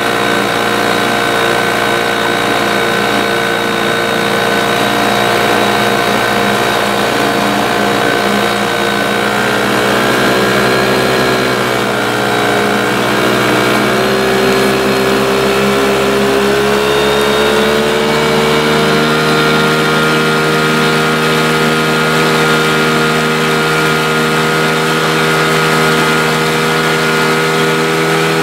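Small two-stroke Yamaha outboard motor running steadily with the boat under way. Its note sags a little around the middle, then picks up and holds steady.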